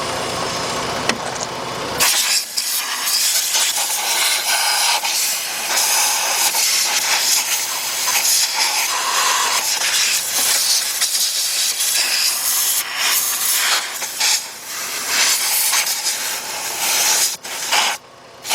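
Compressed air from a shop air-line blow nozzle hissing loudly in uneven surges as it blows carburetor-cleaner residue out of the engine bay, starting about two seconds in and cutting off near the end. For the first two seconds only the Jeep's 3.7-litre V6 is heard idling.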